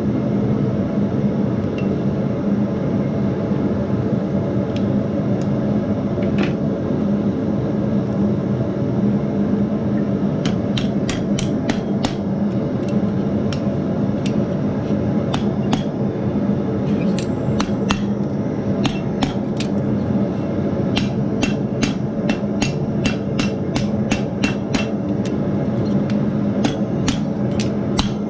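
Blacksmith's hammer striking steel on an anvil: a few scattered blows at first, then steady rapid hammering at about two to three strikes a second from about ten seconds in, over a continuous low drone.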